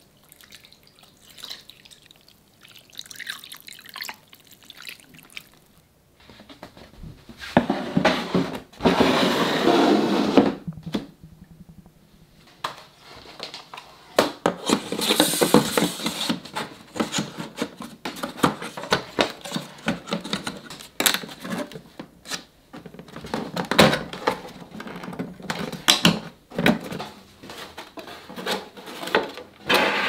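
Water poured from a small watering can into a glass terrarium, splashing onto moss and soil and dripping, in several louder stretches. Sharp clicks and light knocks of small parts being handled come in between.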